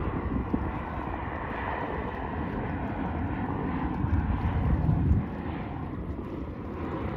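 Boeing 737 airliner's jet engines on low final approach: a steady rushing drone that swells about four to five seconds in, then eases off.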